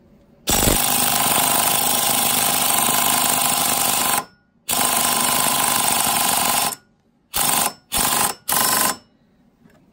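Air-powered impact tool hammering at a snapped bolt on a snowmobile ski mount: two long runs, then three short bursts. The bolt probably doesn't budge.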